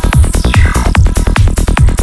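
Electronic trance music with a steady kick drum and rolling bass; a synth effect glides steeply down in pitch in the first half.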